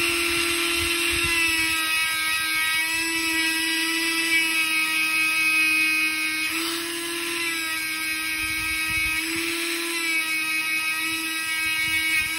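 Handheld rotary tool spinning a small polishing wheel against the steel blade of a straight razor, buffing off rust marks. Steady high motor whine, its pitch dipping briefly a couple of times as the wheel is pressed into the blade.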